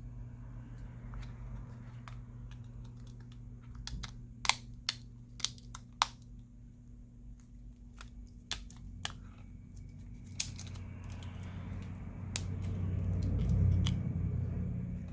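Sharp plastic clicks as a smartphone's middle frame is pressed and snapped onto the phone body, a few in quick succession about four to six seconds in and more around nine to ten seconds, then a stretch of low rubbing and handling noise near the end, over a steady low hum.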